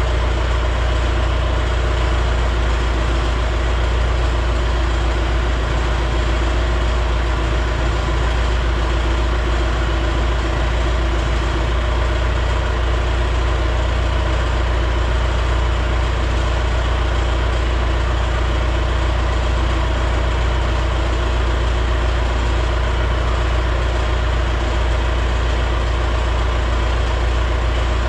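A steady mechanical drone with a strong low hum and many steady tones above it, holding an even level with no distinct knocks or clanks.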